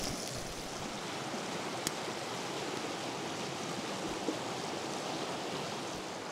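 Creek water running steadily, with a single sharp click about two seconds in.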